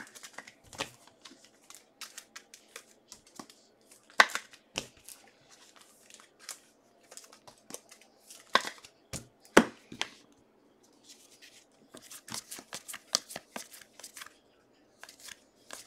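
Football trading cards being handled and a pack opened: wrapper rustle, cards sliding and a string of sharp clicks and snaps, the loudest about four, eight and a half and nine and a half seconds in.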